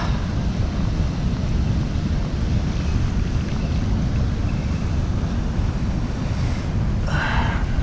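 Wind buffeting the camera microphone: a steady low rumble throughout, with a short brief sound about seven seconds in.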